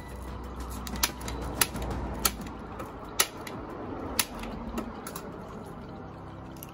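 Hand staple gun firing staples through bubble wrap into a wooden frame: five sharp clacks, roughly a second apart, with the plastic sheet rustling under the hands between them.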